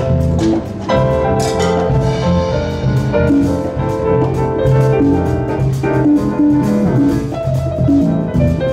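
Brodmann grand piano being played: a continuous passage of many notes, with full chords low down under a melody higher up and sharp note attacks throughout.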